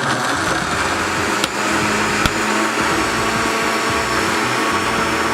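Countertop blender running steadily at speed, blending ice cream, milk and graham crackers into a thick milkshake.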